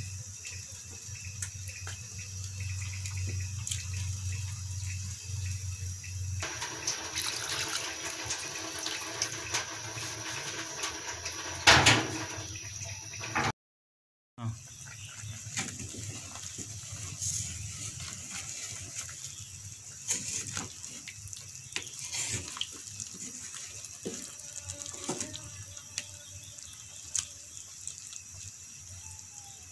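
Snakehead fish curry simmering in a clay pot and being stirred with a wooden spoon: liquid bubbling and sloshing, with scattered clicks and knocks of the spoon against the pot. The sound cuts out briefly about halfway through.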